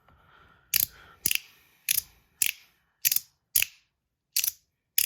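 Three-piece PEI sandwich slider fidget snapping between its detent positions: eight sharp clicks, about two a second, pretty loud.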